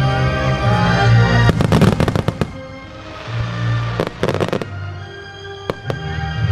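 Starmine fireworks: aerial shells bursting in quick crackling clusters about one and a half seconds in and again around four seconds in, with a few single bangs near the end, over music.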